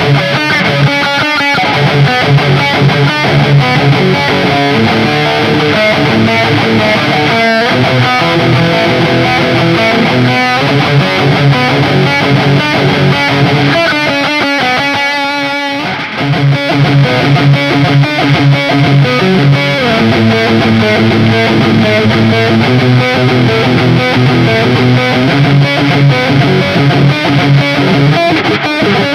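Electric guitar played with distortion through Ibanez STD C1/C2 humbucker pickups, sustained notes and riffs, with a brief drop in loudness about halfway through.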